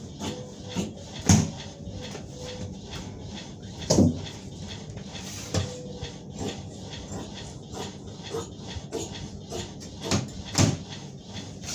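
Large tailor's shears cutting through shirt fabric on a table: a run of snipping clicks from the blades, with several louder knocks in between.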